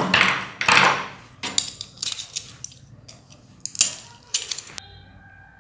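A plastic mains socket handled and fitted against the sheet-steel cabinet of a voltage stabilizer: a run of irregular sharp clicks and knocks that stops near the end.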